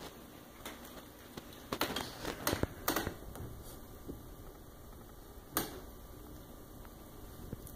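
A small dog chewing and tearing at a stuffed plush lamb toy: irregular clicks and rustles, a quick cluster of them about two to three seconds in and one more about halfway through.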